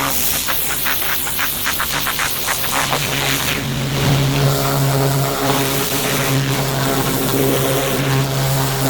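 Pressure washer at work: a loud, continuous hiss of the water jet, pulsing rapidly for the first few seconds. From about three seconds in, the machine's motor joins with a steady hum.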